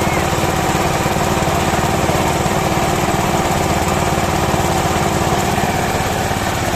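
Small water-pump engine running steadily at a constant speed, driving a well-drilling rig through a Suzuki Carry gearbox.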